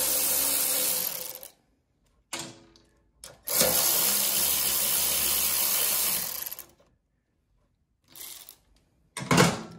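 Cordless power driver spinning a 10 mm socket in two steady runs of a few seconds each, backing out the two bolts that hold the choke bracket and carburetor. Short clatters fall between and after the runs.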